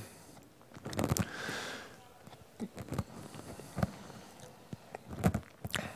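A few short, sharp clicks and taps on a laptop over quiet room noise.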